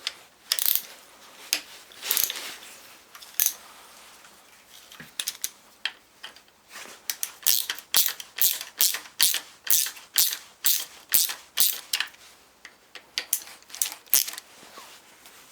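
A hand ratchet being worked back and forth on the starter motor's bolts, its pawl clicking in short strokes. Steady runs of about two to three strokes a second, with pauses between runs.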